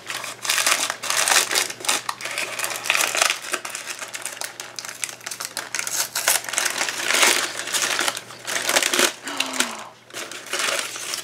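Tissue paper crinkling and rustling in irregular crackles as hands unwrap a small paper-wrapped gift.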